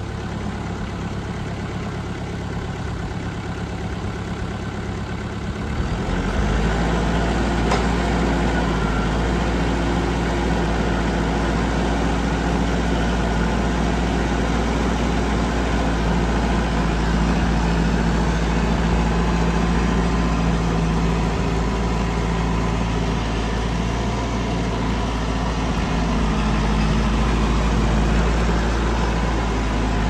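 Mahindra 6010 HST tractor's diesel engine running at idle. About six seconds in the engine speeds up to a higher, louder steady run.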